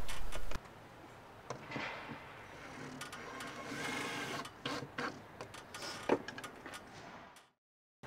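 Cordless drill-driver running in short bursts, driving screws through timber battens into a plywood panel, with a few sharp clicks of handling. The louder run stops about half a second in, and the rest is quieter whirring.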